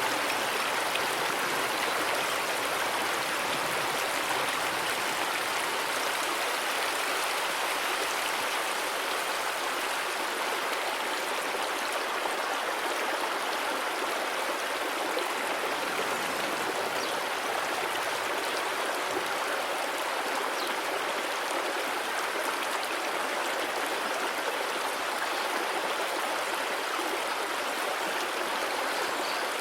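Running water of a stream, a steady even rush with no breaks or changes.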